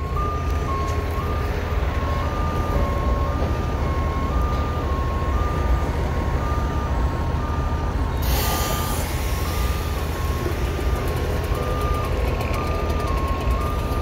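Truck's two-tone reversing alarm, sounding continuously and switching between two close pitches about every half second, over a low engine rumble. A little past halfway a sharp hiss cuts in for about a second.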